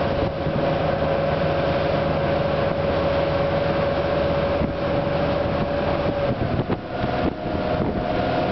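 Towing motorboat's engine running steadily under wind and rushing water, with a steady whine that steps up slightly in pitch about six and a half seconds in.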